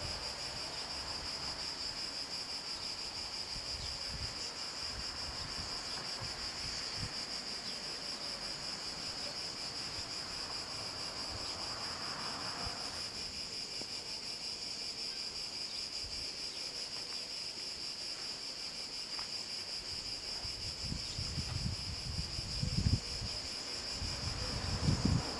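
Cicadas buzzing in a steady high drone, with wind gusting on the microphone in the last few seconds.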